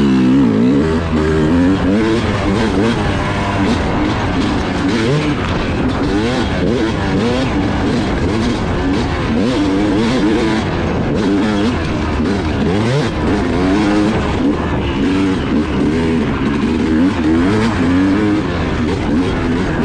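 Yamaha YZ250 two-stroke dirt bike engine riding a rutted trail under the rider, revving up and down constantly as the throttle is worked, its pitch rising and falling every second or so.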